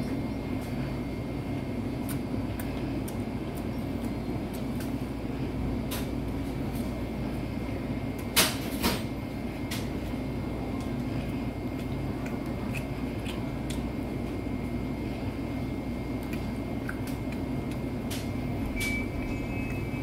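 A convenience store's steady low hum, with scattered light clicks of wooden chopsticks on a plastic lunch tray. A sharp knock sounds twice about eight and a half seconds in.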